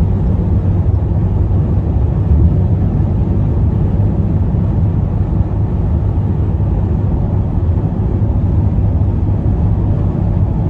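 Heard from inside the cab: a 2021 Ram 3500's 6.7-litre High Output Cummins turbo-diesel pulling steadily on the road, a low, even drone mixed with road and tyre noise. The intake is sucking in air through a newly fitted Banks Monster Ram intake.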